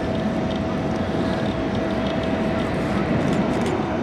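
Turbofan jet noise from an Embraer IU-50 twin-engine business jet in flight: a steady rushing sound with a thin steady whine that stops near the end.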